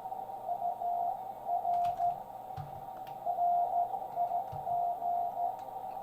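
Morse code (CW) on a ham radio receiver: a single steady tone keyed on and off in short and long elements (dits and dahs), inside a narrow band of hiss from the receiver's CW filter. A few faint taps come through as well.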